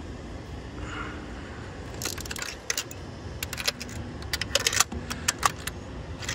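Socket ratchet clicking in several short runs, with small metal clinks from the socket and extension, as the new spark plugs are tightened down.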